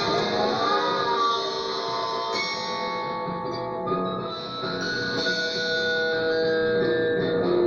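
Instrumental music of long, ringing held notes in a guitar-like tone, with a wavering bend in pitch near the start.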